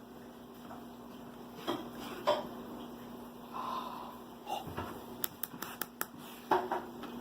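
A dog sniffing and nosing through a fabric activity mat for hidden treats: short rustles and snuffles, and a quick run of about six light clicks a little past the middle, over a faint steady hum.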